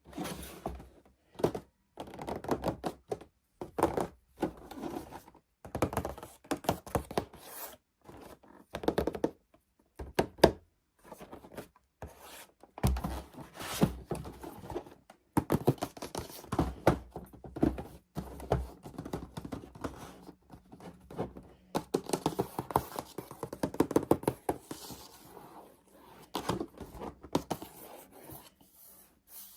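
Plastic toys and their packaging being handled: a run of irregular clicks, knocks and rustles, with the odd tearing sound.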